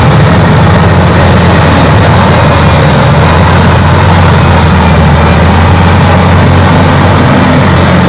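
Wheel loader's diesel engine running steadily as the machine moves along, a loud, even low drone.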